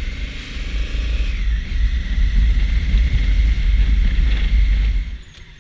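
Honda Africa Twin CRF1000L's parallel-twin engine running on the move, under heavy wind rumble on the microphone. The noise grows louder from about two seconds in, then cuts off suddenly near the end.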